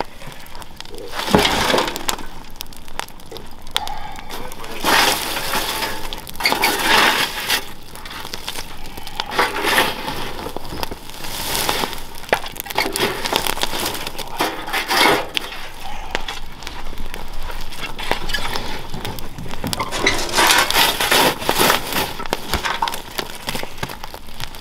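Open wood fire crackling and popping while a metal shovel rakes and breaks up the burning wood, giving irregular bursts of crunching and clinking every few seconds. The wood is being burned down into charcoal for smelting iron.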